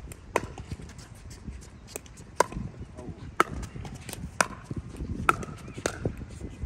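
Pickleball rally: a paddle hitting the hard plastic ball, sharp pops about once a second.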